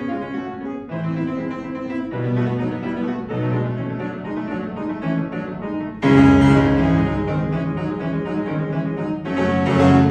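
Instrumental classical music led by piano, with a pattern of repeated notes in the low and middle range. About six seconds in it turns suddenly louder and fuller.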